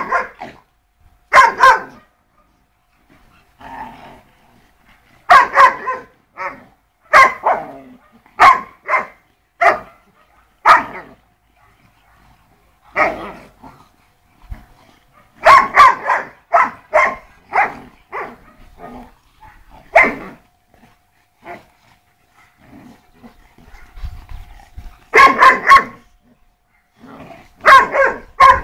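Sarplaninac and shar-pei dogs barking during rough play-fighting: short, sharp barks that come in quick runs of two to five, with pauses of a few seconds between runs.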